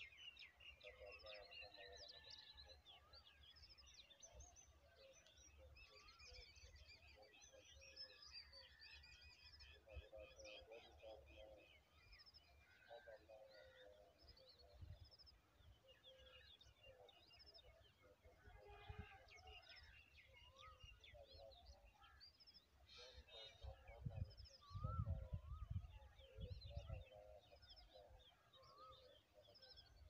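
Faint background chorus of several wild birds chirping, trilling and whistling, with many overlapping calls. Bursts of low rumble come about two-thirds of the way through.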